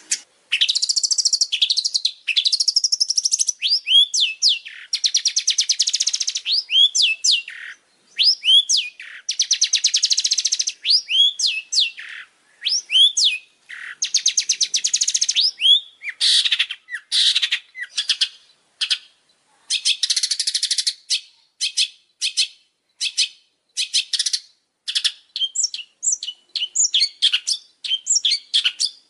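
Long-tailed shrike (cendet) singing a fast, chattering song: buzzy rattling trills alternate with runs of sharp, hooked whistled notes, in quick bursts with short gaps between them.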